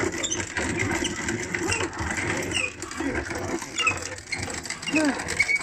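Hand-cranked metal grain mill grinding dried corn kernels into chicken feed: a steady grinding with many small crackles as the kernels are crushed.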